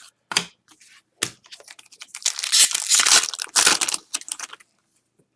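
Foil trading-card pack wrapper torn open and crinkled by hand: a couple of sharp crackles, then a loud stretch of tearing and crumpling foil for about two seconds.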